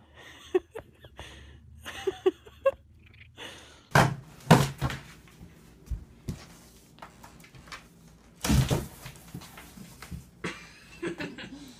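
Cardboard box knocked and thudding on the floor as a cat pushes its way into it. There are two loud thumps, about four seconds in and about eight and a half seconds in, with lighter knocks and scrapes between.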